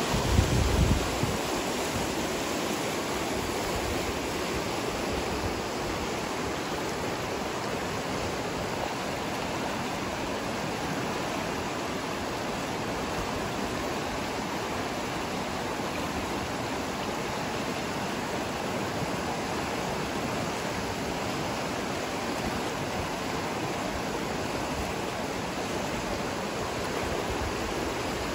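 Steady rushing of a fast mountain river running over shallow rapids and around boulders. A brief low rumble in the first second.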